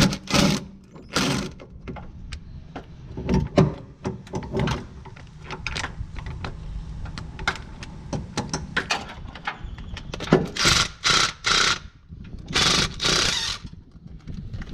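Irregular metal clicks, knocks and clinks of hand tools and parts while the starter solenoid is being taken apart, with a quick run of short, harsher bursts near the end.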